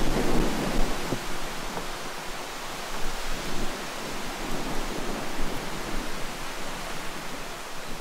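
Wind blowing on the microphone, with heavy low buffeting in the first second that eases into a steady rushing hiss with small gusts.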